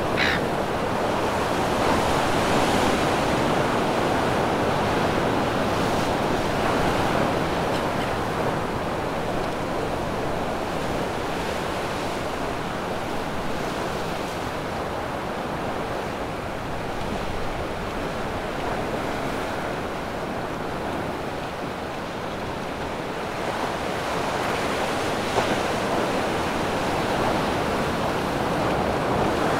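Ocean surf washing and breaking against the edge of a rock ledge, a steady rush that eases slightly in the middle and builds again toward the end.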